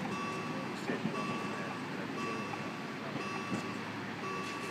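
A lorry's reversing alarm beeping about once a second, over a steady hum of street traffic.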